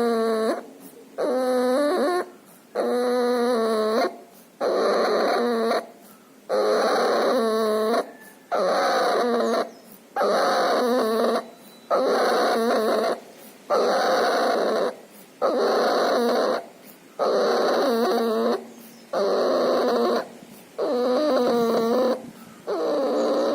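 Puppy with pneumonia and distemper breathing loudly and with effort, each breath carrying a pitched, voice-like tone. The breaths come evenly, about one every 1.7 seconds, each lasting over a second with a short gap between.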